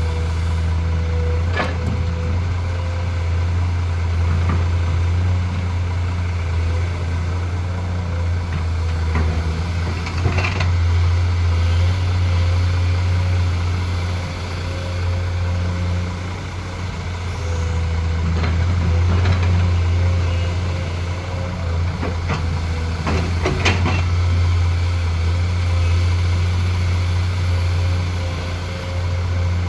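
Komatsu PC210 excavator's diesel engine running steadily under load, with a steady whine over it. The engine swells as it works and a few sharp knocks come through.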